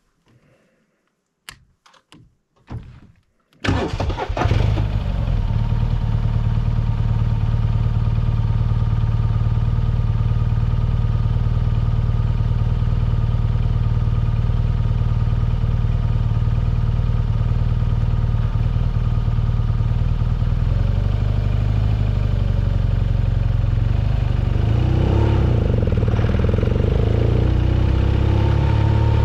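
A few short clicks, then about three and a half seconds in a motorcycle engine starts and settles into a steady idle. Near the end its note rises a little as the engine is revved.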